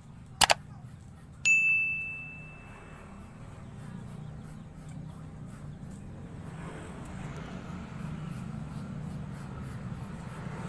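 A double click sound effect followed by a single bell ding that rings out and fades over about two seconds, as on a subscribe-button animation. A low motor hum grows louder in the background from about halfway through.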